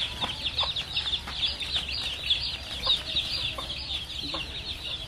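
A flock of chickens cheeping: many short, high peeps overlapping in a constant chatter, with a few faint clicks.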